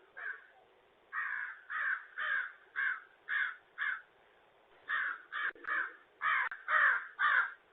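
An animal calling over and over, about two calls a second, in two runs with a short pause near the middle.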